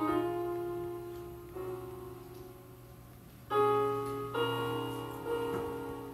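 Slow keyboard music: sustained piano-like chords struck about five times, each left to ring and fade, over a steady low hum.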